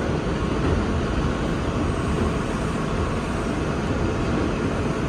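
R142 subway train running at speed on elevated track, heard from inside the car: a steady noise of wheels on rail and running gear, heaviest in the low end.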